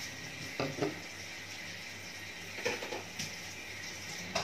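Metal fork clinking and scraping against a ceramic bowl a few times, in short separate touches, over a steady faint hum.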